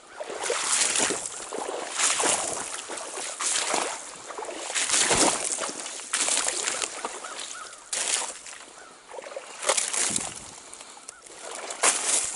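Water sloshing around an angler's legs as he wades a cold stream, in repeated surges about every one to two seconds.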